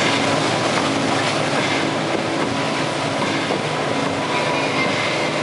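Supreme V226 wake boat running steadily under way, its engine hum mixed with the rush of the churning wake water behind it.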